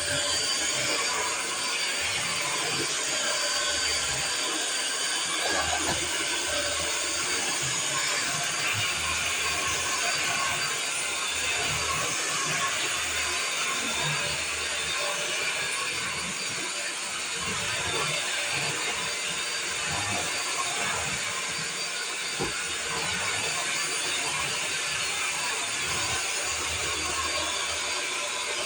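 Vacuum cleaner running steadily: a constant, even hiss of motor and rushing air.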